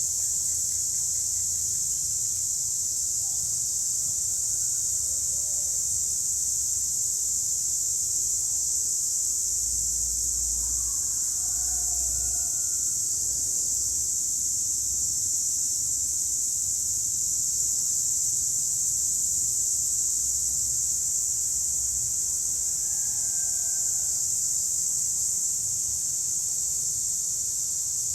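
A chorus of cicadas buzzing in a steady high-pitched drone that does not let up, with a few faint short chirps now and then underneath.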